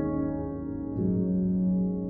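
Soft instrumental background music with held notes; a new, lower note comes in about a second in.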